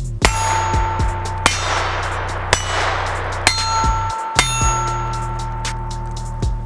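Steel shooting targets ringing after 9mm bullet hits: two sharp clangs, each ringing on with a clear metallic tone, the second longer. Background music plays underneath.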